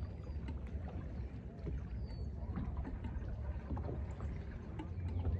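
Water lapping against a fishing boat's hull over a steady low wind rumble, with a few faint small knocks.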